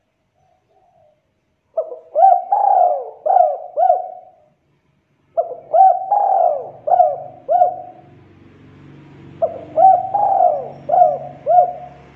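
Spotted dove cooing: three phrases of about five notes each, a few seconds apart.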